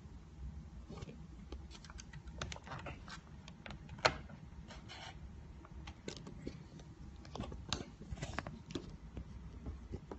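Irregular small plastic clicks and scrapes of a laptop being handled upside down while its battery is unlatched and pulled out, with one sharp click about four seconds in.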